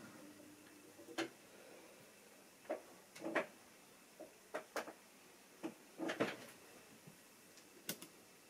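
A model train's faint motor hum stops about a second in, then about a dozen light clicks and taps at irregular intervals, from hands handling pieces on the model railway layout.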